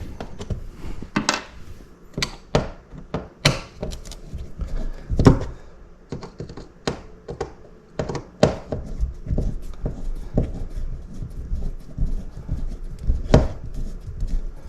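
Irregular clicks and knocks of a thermostat's wall plate being unscrewed and taken off the wall, the loudest knocks about five seconds in and near the end.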